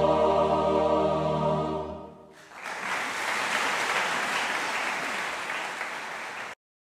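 A mixed choir sustains a final chord that dies away about two seconds in, then an audience applauds until the sound cuts off abruptly near the end.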